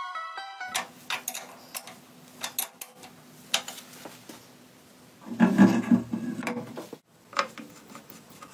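Clicks and small metallic knocks of motorcycle parts being handled, with a faint steady hum behind them and a louder rattling clatter a little after five seconds in.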